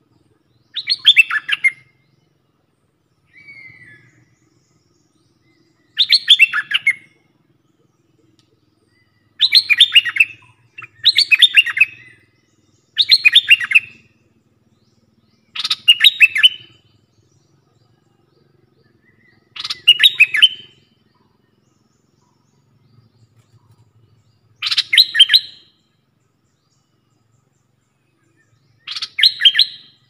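Caged decoy bulbul singing: about nine short, loud phrases of rapid notes, each about a second long, spaced a few seconds apart, with one faint short call between the first two.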